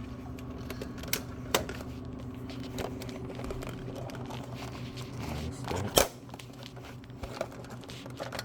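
Hands working inside an opened vending machine: scattered clicks and rustling over the machine's steady electrical hum, with a sharp knock about six seconds in.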